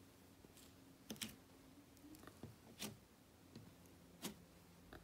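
Fluffy slime made with shaving cream, squished and pressed under fingers, giving soft scattered clicks and crackles over a faint room hum.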